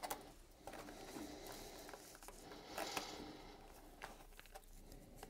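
Faint rustle and patter of loose forest-floor scatter being sprinkled by hand and pressed onto wet white glue, with a few light taps.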